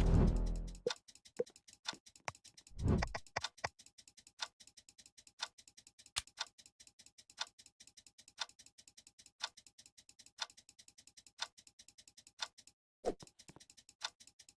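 Clock ticking, about one loud tick a second with fainter ticks between, and a single dull thump about three seconds in.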